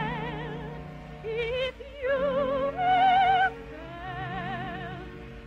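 Operetta song: a voice singing with strong vibrato over an orchestra, held notes in short phrases.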